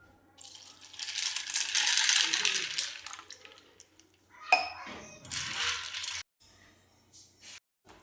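Kitchen clatter: metal utensils and dishes being handled, with two stretches of dense rattling and a sharp ringing clink about four and a half seconds in.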